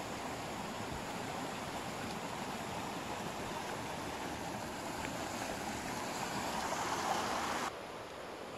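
Steady rushing noise, growing a little louder and then dropping off suddenly near the end.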